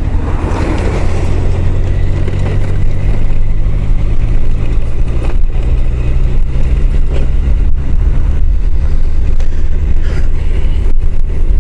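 Honda CBR1000F's inline-four engine running steadily under heavy wind rush on a helmet-mounted microphone.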